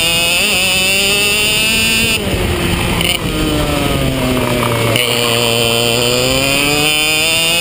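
IAME KF2 125cc two-stroke kart engine heard onboard: revs climb under full throttle, the driver lifts off about two seconds in and the pitch falls steadily through the corner, then he is back on the throttle about five seconds in and the revs climb again.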